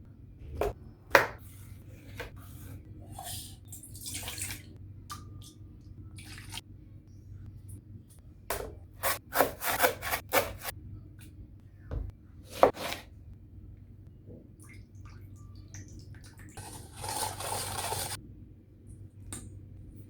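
Kitchen handling sounds while preparing food: scattered knocks and clicks, a quick run of clatter partway through, and a brief rush like running water or rubbing near the end, over a steady low hum.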